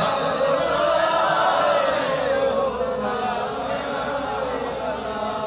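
A waz preacher's voice chanting one long, drawn-out melodic line into a microphone, the pitch slowly gliding and wavering, growing gradually softer toward the end.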